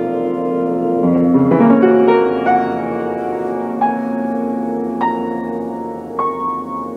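Slow, gentle solo piano music: a few lower notes about a second in, then single high notes struck about every second over held lower notes.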